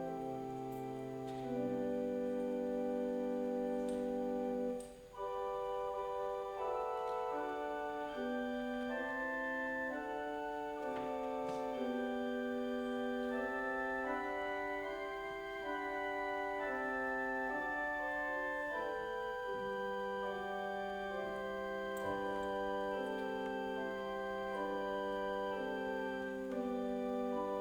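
Organ prelude played slowly: sustained chords held under a melody that moves from note to note, with a brief break between phrases about five seconds in.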